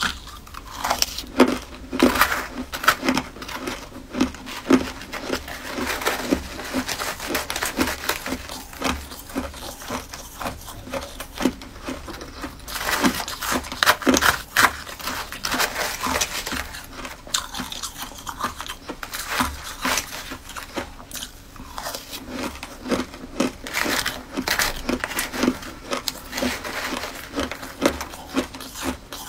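Close-up crunching and chewing of a mouthful of frosty crushed ice: a dense, irregular run of crisp crackles and crunches, with a few short lulls between bites.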